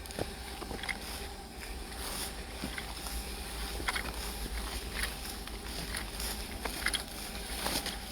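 Steady low rumble of wind and handling noise on a phone microphone, with scattered faint clicks and taps.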